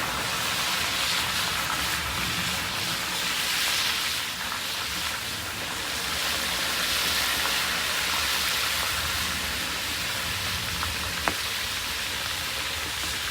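Fish frying in hot oil, a steady sizzle, with one sharp pop about eleven seconds in.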